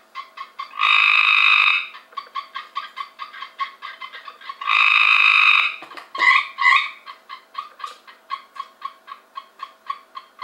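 Cope's gray tree frogs calling: a loud trill about a second long near the start and another about halfway, with runs of short repeated notes, several a second, in between and after.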